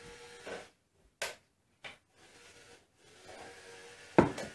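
Milk, oil and egg mixture poured from a glass measuring cup into a glass bowl of flour and cocoa, with soft pouring and handling noises and a few light clicks. There is a louder knock about four seconds in.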